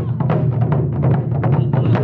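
Wadaiko ensemble of shoulder-slung taiko drums beaten with sticks in a fast, steady rhythm, about seven strokes a second over a sustained low boom.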